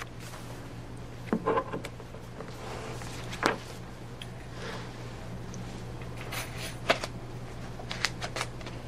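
Pages of a large book being leafed through and the book shifted on a desk: a few short paper rustles and light knocks over a steady low electrical hum.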